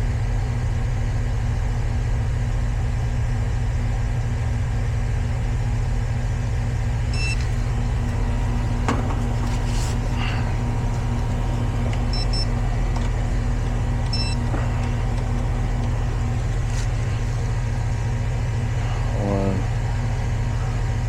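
Heat pump outdoor unit running in heating mode: a steady low hum from the compressor and condenser fan, with a few faint clicks.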